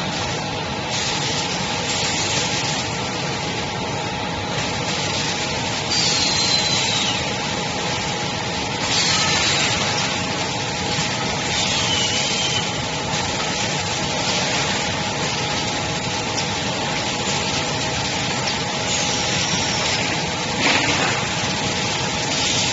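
Plastic conduit pipe belling machine running: a steady machine hum with a few steady whining tones. Several times it is broken by short bursts of hissing air with a squeaky gliding whistle, as its pneumatic cylinders vent.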